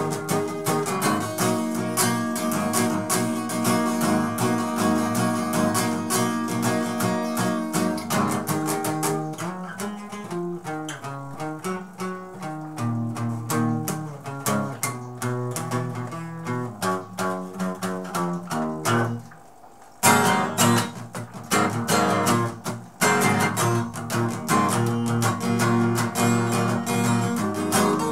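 Acoustic guitar strummed chord after chord, with no voice. About two-thirds through the playing dies away for a moment, then comes back loud.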